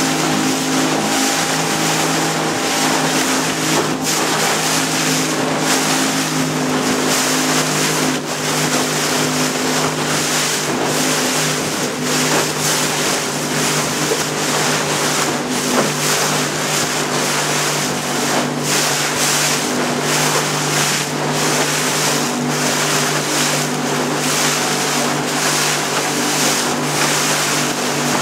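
A small motorboat's engine running at a steady speed under the hiss of water and wind rushing past, with a few brief knocks along the way.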